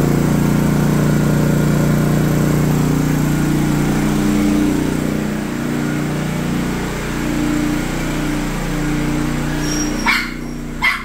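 Philking 4200 inverter generator's engine running with eco mode switched off, so it holds a raised speed; its pitch wanders a little. A dog barks twice near the end, about a second apart.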